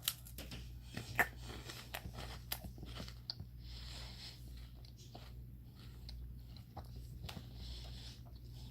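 Close-up chewing and crunching of a crunchy chocolate stick snack: irregular crisp crunches and mouth clicks.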